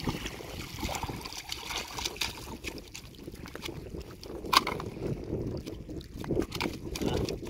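A hooked fish splashing and thrashing at the water's surface as it is pulled in to the bank, then flapping in the shallows against the rocks. A single sharp slap stands out about four and a half seconds in.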